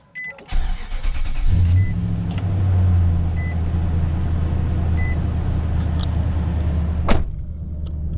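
Nissan 5.6 V8 cranks briefly and starts about a second and a half in, then idles steadily on freshly replaced spark plugs, smooth with no misfires. A high beep repeats a few times over the idle, and a single sharp knock comes near the end.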